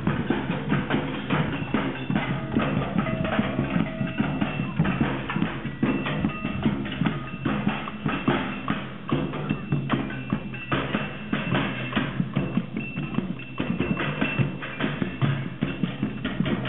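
A group drumming together: many drums and other struck percussion played in a dense, busy rhythm, with short ringing tones over the hits.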